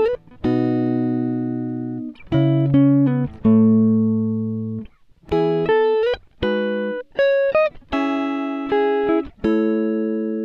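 Background music on guitar: plucked chords and single notes, each struck and left to ring and fade, with a few short upward slides between notes.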